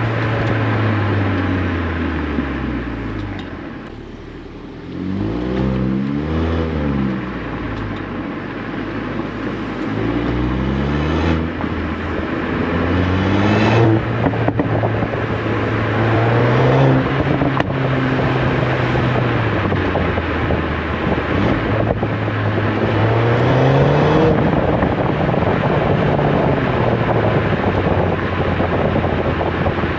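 VW Golf 8 R's turbocharged 2.0-litre four-cylinder running through its Akrapovic exhaust while driving, its revs climbing and dropping several times, with a brief quieter lull about four seconds in.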